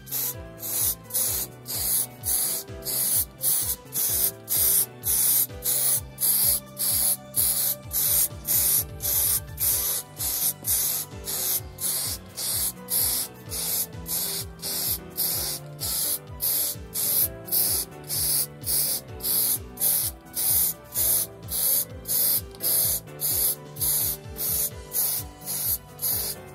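Aerosol spray-paint can hissing in short, evenly repeated bursts, about two a second, as the paint goes on in strokes. Background music plays underneath.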